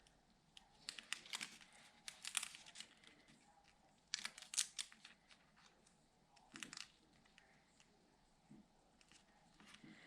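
Paper and craft pieces being handled: short bursts of crinkling and rustling, loudest about two seconds in and again around four seconds, with brief near-quiet gaps between.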